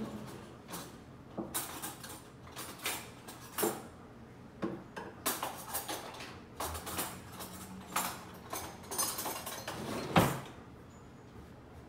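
A wooden kitchen drawer being opened and cutlery clattering as someone rummages through it, with a run of clinks and knocks and one sharp clack about ten seconds in.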